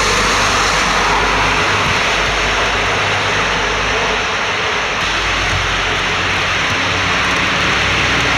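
Steady road noise from a tanker lorry that has just passed: its engine hum and its tyres hissing on the wet, slushy road.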